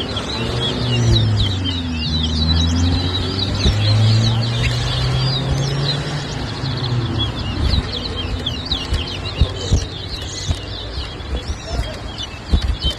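Caged twa-twa finches (chestnut-bellied seed finches) singing fast, overlapping chirping song throughout, with men's voices talking low underneath during the first half.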